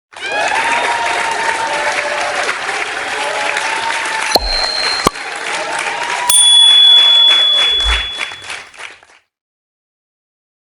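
A crowd clapping and cheering, with two bright dings about two seconds apart partway through. It fades out about nine seconds in.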